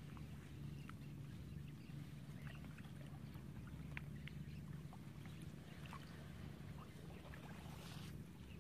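A low steady hum with scattered small splashes and clicks as a person wades slowly through a shallow, weedy pond.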